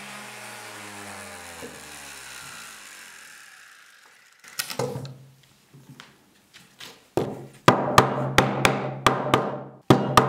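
A power tool's motor winding down to a stop, its pitch falling steadily over the first few seconds. Then, after a short lull, percussive music starts: scattered wood-block-like hits that settle into a steady beat over a sustained low note.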